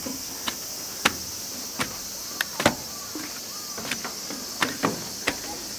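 Footsteps knocking on the wooden planks of a playground walkway: irregular sharp knocks, about nine in all, over a steady high buzz of insects.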